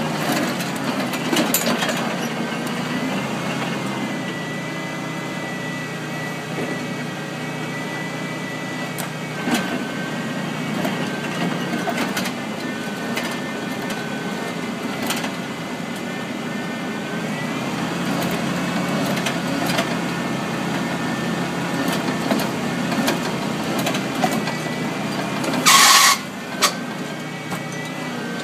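1986 Jeep CJ7's engine running steadily, driving a PTO-powered auger drill rig as it bores into sandy soil, with a thin high whine over the drone. A short loud burst of noise comes about two seconds before the end.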